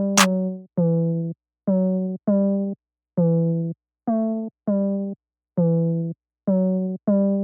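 Background music: short synthesizer-keyboard chords stabbed in a syncopated rhythm, each fading quickly before a brief silence, with a sharp percussive hit just after the start.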